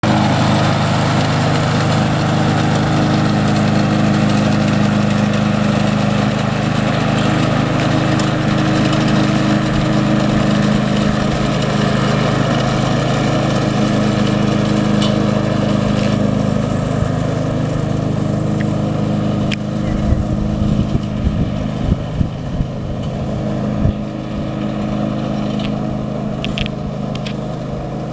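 Ride-on lawn mower engine running steadily as it cuts grass, getting a little quieter in the last third as the mower moves away. Short low thumps on the microphone come over the last several seconds.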